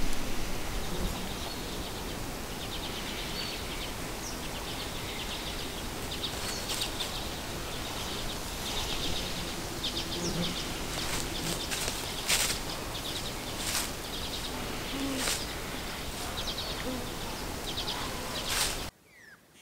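Birds calling with quick, repeated trills over a steady outdoor hiss, with a few sharp knocks in the second half.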